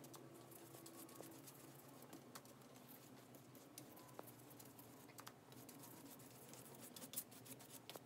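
Near silence with faint, scattered light taps and brushing of a paintbrush on wet watercolor paper as a thin watercolor wash is laid on.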